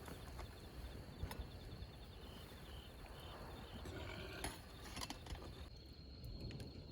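Insects chirping at night: a steady high trill with a row of short, evenly repeated chirps, over a low rumble and a few scattered clicks.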